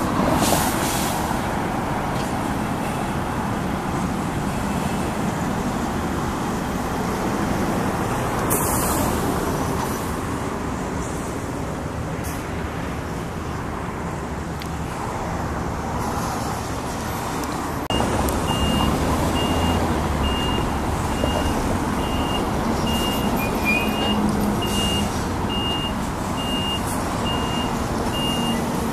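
Heavy truck diesel engines running with passing traffic. About two-thirds of the way in, an engine picks up and a vehicle's reversing alarm starts beeping at a steady, even pace.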